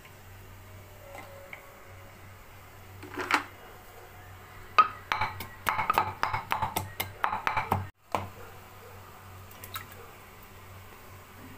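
Kitchen clatter of ingredients being handled in a clay bowl and a metal cooking pot: a few knocks about three seconds in, then a quick run of clinks and taps for about three seconds that stops abruptly. A steady low hum lies under it.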